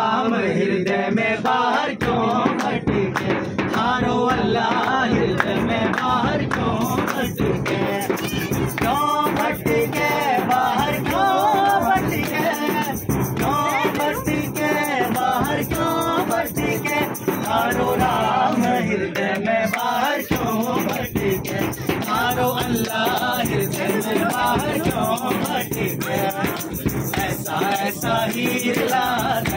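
Live folk-fusion music: voices singing over a hand-beaten frame drum and other percussion keeping a steady beat.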